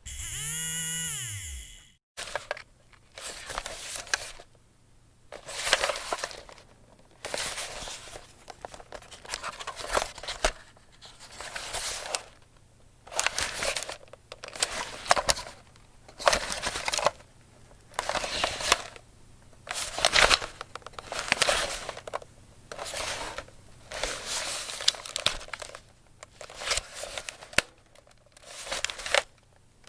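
A small handheld motor whines up and down briefly and cuts off about two seconds in. After that, a camera is handled: irregular bursts of rustling and scraping with occasional clicks.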